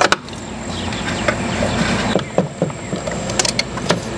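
Pliers working a metal hose clamp on an engine's PCV hose: a quick cluster of sharp clicks at the start, then a few scattered clicks, over a steady low rumble.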